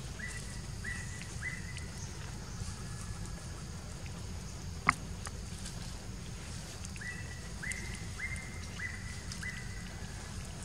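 Wind rumbling on the microphone while a bird calls in a series of short whistled notes, each rising and then held. Three notes come near the start and five more in the second half, with one sharp click about halfway.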